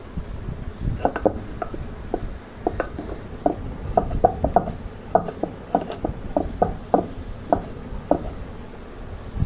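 Cylindrical stone roller crushing boiled jackfruit seeds on a stone grinding slab (shil-nora): irregular clacks of stone on stone and on the seeds, starting about a second in, over a low rolling rumble.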